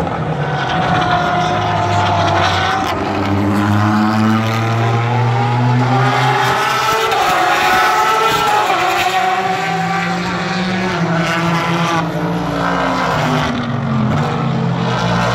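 Several IMSA sports-prototype and GT race car engines at speed along the front straight, loud and continuous. The overlapping engine notes rise and fall in pitch as the cars pass one after another.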